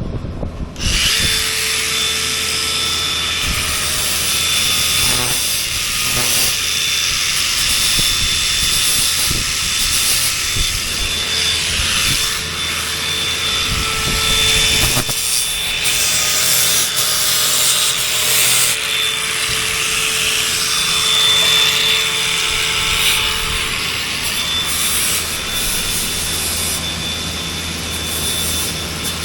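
A power tool running continuously under load, a harsh steady grinding noise with a thin high whine through it, starting abruptly about a second in.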